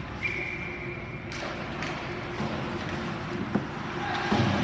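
Ice hockey game in a rink: a steady whistle blast lasting about a second near the start, then a few sharp clacks of sticks and puck on the ice, over a steady arena din that grows louder near the end.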